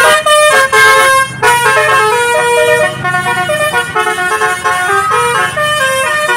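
A bus's basuri telolet multi-tone horn playing a fast, loud melody. Its chord of notes steps up and down every fraction of a second without a break.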